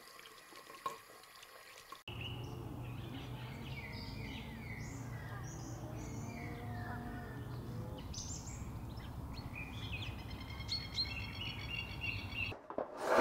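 Wild birds chirping and calling in trees: scattered short chirps and whistled, gliding notes, with a run of quick repeated notes near the end, over a steady low rumble. The first two seconds hold only a faint trickle of a tap running into a basin.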